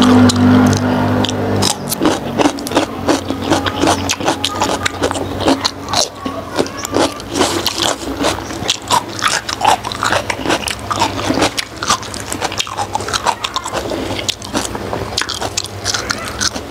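Close-miked chewing and lip-smacking of soft steamed pork skin: a quick, irregular run of wet clicks and smacks. A steady low hum, the loudest sound, plays at the start and stops abruptly about two seconds in.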